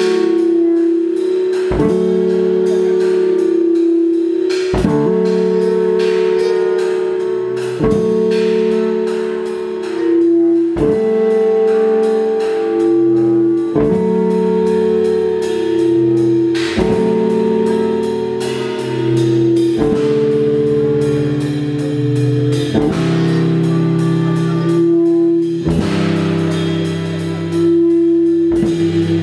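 Live jazz band playing, with a drum kit and cymbals under long held notes. A sharp accented hit comes about every three seconds.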